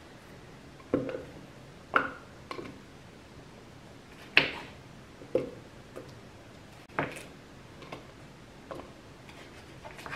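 Scattered sharp knocks and clacks, about eight at irregular intervals, from kitchen handling as pieces of frozen coconut are cut and put into a blender jar.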